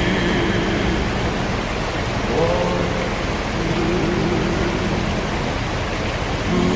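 Steady rush and splash of river water around a Land Rover Discovery 3 wading through it, with the engine running underneath and rising briefly in pitch about two and a half seconds in and again near the end.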